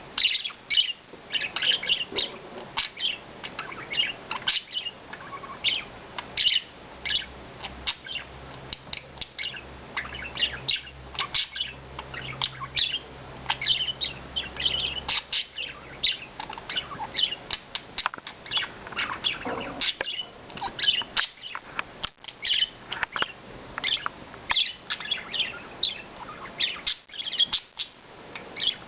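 Pet budgerigars chirping and chattering in quick, short calls, one after another without a break. A faint low hum runs underneath from about eight to fifteen seconds in.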